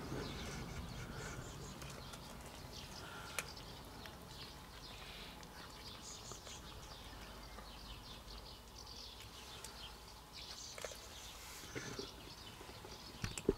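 Faint outdoor background with scattered high chirps and a couple of sharp clicks, one about three seconds in and one near the end.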